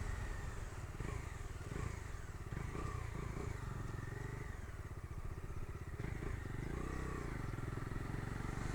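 Bajaj Dominar 250's single-cylinder engine running under way with two aboard, heard from the pillion seat, its note easing off and picking up slightly with the throttle.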